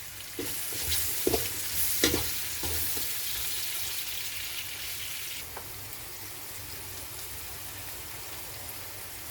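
Chopped onions sizzling in hot oil in a frying pan as they are sautéed, with a spatula scraping and knocking against the pan a few times. The sizzle eases a little about halfway through.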